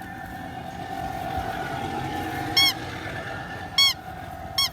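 Short honking bird calls, three in a row, each brief and rising then falling, over a steady faint hum.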